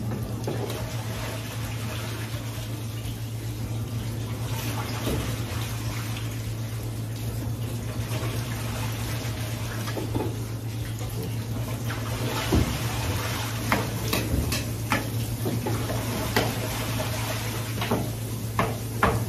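Tap water running into a kitchen sink, with a steady low hum underneath. From about ten seconds in, scattered knocks and clinks of things handled in the sink.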